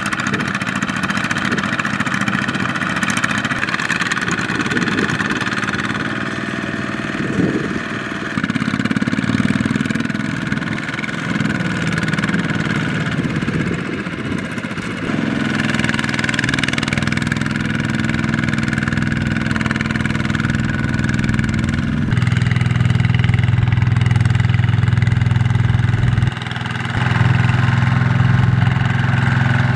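Single-cylinder diesel engines of two-wheel walking tractors running hard while pulling loaded trailers through deep mud. The engine note shifts in pitch and loudness several times, turning louder and steadier about two-thirds of the way through, with a brief drop near the end.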